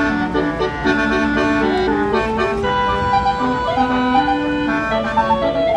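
Tour bus basuri musical air horn playing a tune: a melody of held, organ-like notes that step up and down in pitch, several sounding together, over a low engine rumble.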